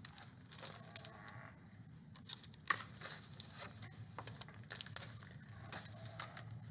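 Pages of a large picture book being handled and turned: soft paper rustles with light taps and clicks.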